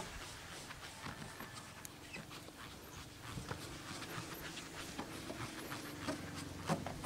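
Yellow foam sponge pad rubbed quickly back and forth over a car door's painted panel, working scratch-remover compound into a scratch: rhythmic swishing strokes, several a second.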